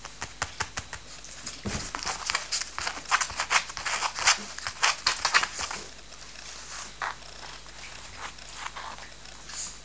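Coton de Tulear puppies going for a treat held out by hand: a quick run of sharp clicks and scratches, densest and loudest in the middle, then thinning to scattered clicks.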